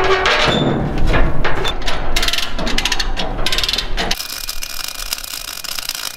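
Steel frame fabrication: irregular clanks and knocks of steel with stretches of fast crackling. About four seconds in it gives way to the steady hiss and crackle of a MIG welding arc.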